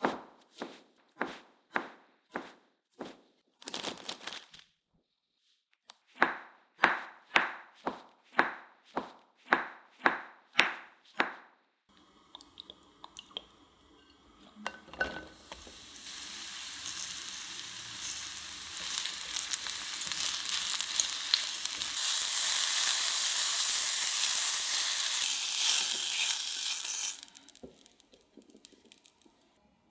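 Knife chopping button mushrooms on a wooden cutting board, about two strokes a second. About halfway through, mushrooms frying in oil in a pan take over: the sizzle builds and then stops shortly before the end.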